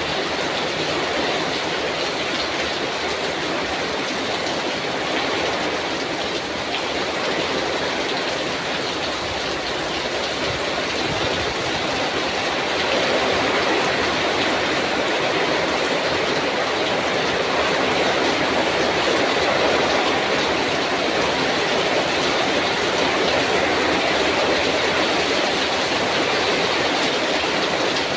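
Heavy rain pouring down in strong wind: a steady, dense hiss with no breaks.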